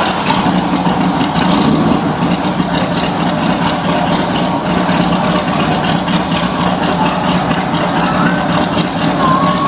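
Vehicle engine idling, a steady low hum holding level throughout.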